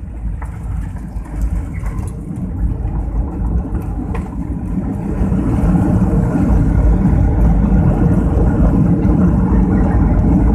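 Jet airliner's engines and runway rumble heard from inside the passenger cabin: a loud low rumble that builds over the first five seconds and then holds steady.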